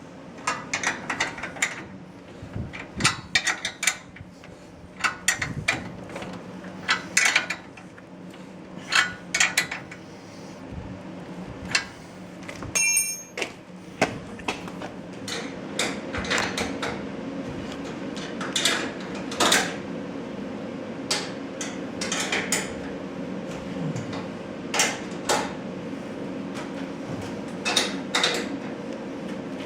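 Irregular metallic clicks and knocks of tools and garage-door hardware being handled and fastened during installation, with a brief ringing metal note partway through, over a steady hum.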